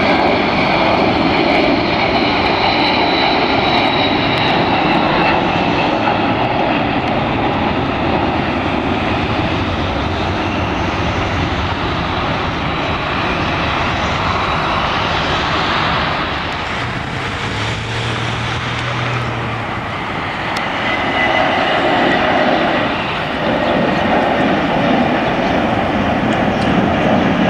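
Boeing 747 jet engines at takeoff power: a loud, steady rushing rumble as the airliner lifts off and climbs away, easing off about two-thirds of the way through. Near the end a second airliner, a rear-engined twinjet climbing out, takes over just as loudly.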